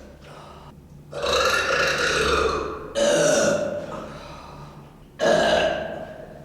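Three long, loud burps from a woman, each starting suddenly and trailing off, about one, three and five seconds in.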